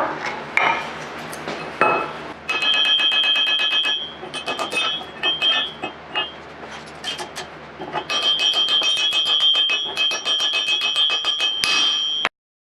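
Hammer blows on steel: quick runs of sharp metal strikes, about seven or eight a second, each leaving a high ringing tone, with a few scattered strikes in between. They stop abruptly near the end.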